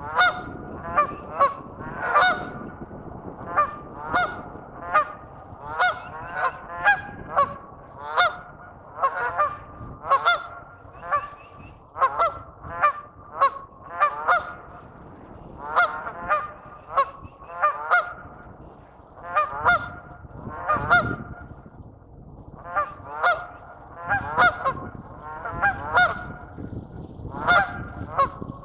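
Geese honking: a steady stream of short, nasal honks, often several in quick succession, with hardly a pause.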